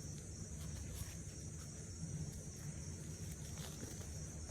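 Steady high-pitched buzz of crickets, with faint rustles and small ticks of hands sifting through potting soil for potatoes.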